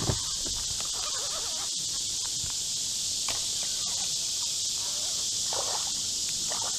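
Steady, unbroken high-pitched buzz of a summer insect chorus, with a low thump just after the start and a few faint scattered chirps and clicks.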